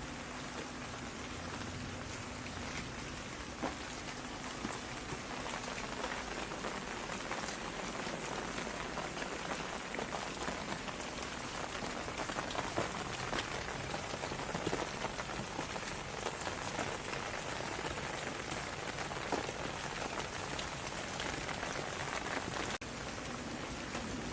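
Steady rain falling, a dense even hiss dotted with many individual drop hits. It cuts out for a split second near the end.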